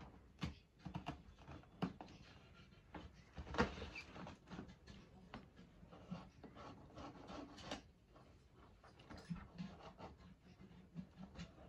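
Quiet kitchen handling of colocasia leaves: a knife trimming the tough stalks from the backs of the leaves, heard as irregular soft clicks, taps and rustles, with one sharper tap about three and a half seconds in.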